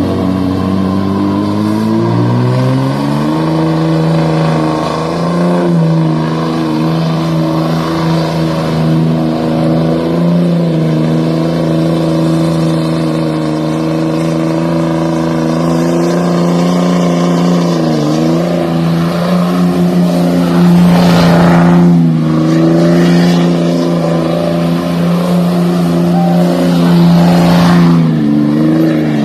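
Diesel pickup truck engine, loud, revving up over the first few seconds and then held at high rpm for a long stretch, as in a burnout. The revs dip briefly about 18 seconds in and again near the end.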